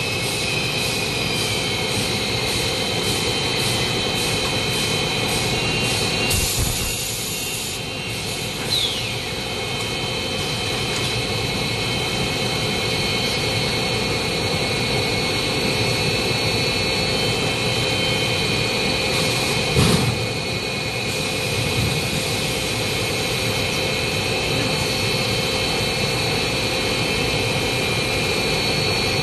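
Fully automatic stretch film machine running with a steady mechanical whine and several high steady tones, with a run of light clicks early on, a short hiss of air about six seconds in and a single knock about twenty seconds in.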